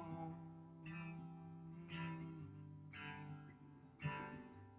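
Acoustic guitar played softly, one chord strummed about once a second and left to ring.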